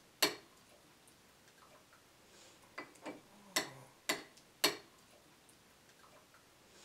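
A spoon clinking sharply against a cat-food can and dish, about six taps, while wet cat food is served. About three and a half seconds in comes a faint deep groan that falls in pitch, unexplained and taken by the uploader for something creepy right next to the camera.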